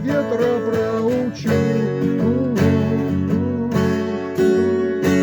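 Acoustic guitar strumming chords in the closing bars of a song.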